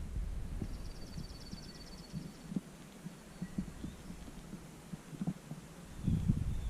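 Soft, irregular thuds of walking footsteps over a low rumble on the microphone. About a second in, a small bird gives a rapid, high trill lasting about two seconds.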